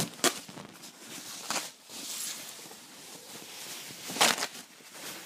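Rustling and crinkling of a thin protective wrap and fabric bag being pulled off a helmet, with sharper crackles about a quarter second in, at about one and a half seconds, and loudest around four seconds.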